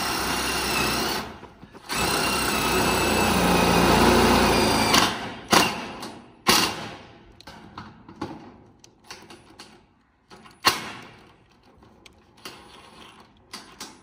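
Power drill driving screws through a corrugated steel wall sheet. A short run, a brief stop, then a longer run of about three seconds, followed by a few sharp knocks and quieter handling sounds.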